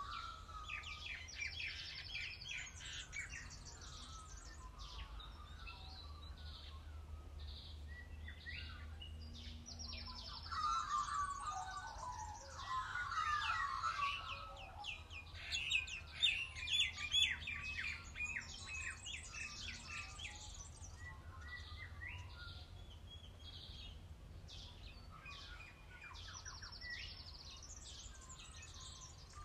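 Birdsong: several birds chirping, trilling and warbling at once. It is busiest and loudest from about ten to twenty seconds in.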